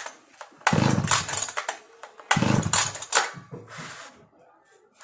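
Oleo-Mac Sparta 44 two-stroke brush cutter being pull-started: the recoil starter is yanked twice about a second and a half apart, then once more more lightly, each pull a short whirring crank that dies away. The engine does not fire at all, the starting problem being diagnosed.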